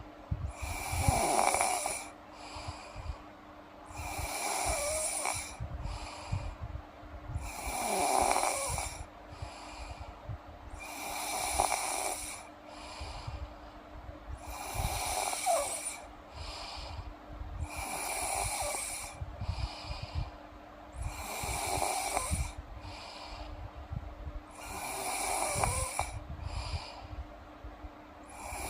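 A sleeping girl snoring in a slow, even rhythm, one snore about every three and a half seconds.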